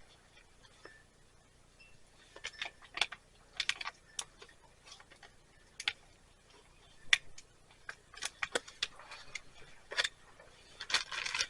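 Irregular small clicks, taps and short rustles of gear being handled by hand.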